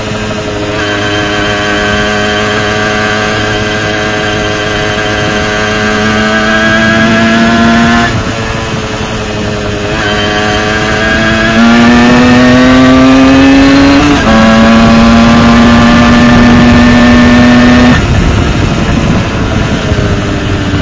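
Tomos ATX moped's two-stroke engine, fitted with a Dellorto 19 PHBG carburettor, running at high revs. The pitch climbs slowly under load, drops abruptly about 8 seconds in and again about 14 seconds in, and falls away about 18 seconds in.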